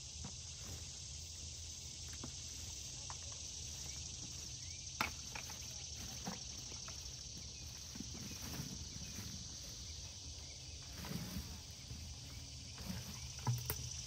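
Steady high-pitched drone of insects, with a few sharp knocks, the loudest about five seconds in and another near the end.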